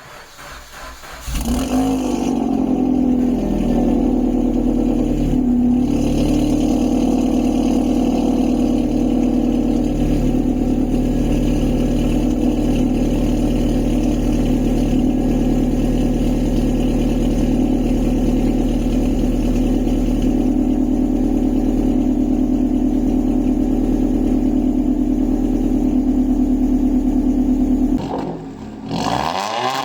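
Suzuki Swift Sport's 1.6-litre four-cylinder engine breathing through a decat pipe and Remus exhaust starts about a second in, flares briefly and settles into a steady idle. Near the end it revs up once and drops back.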